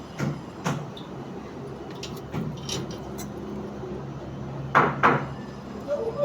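Construction work sounds: scattered knocks and clanks of tools or materials, the loudest a pair close together about five seconds in, over a steady low hum.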